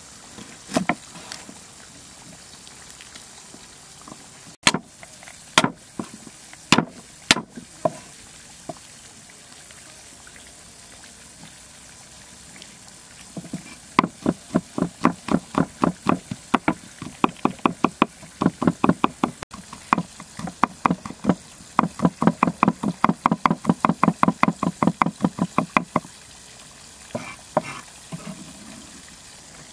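Chinese cleaver striking a thick wooden chopping board: a few scattered knocks as garlic cloves are peeled and cut. Then comes a long run of quick, even chops, about four a second, as the garlic is minced, ending with a few last taps.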